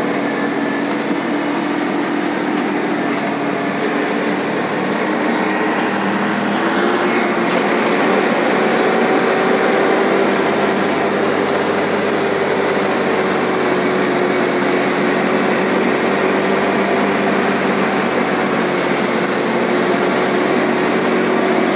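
Truck engine running under way, heard from inside the cab along with road and cab noise; its note rises a little about six or seven seconds in and then holds steady.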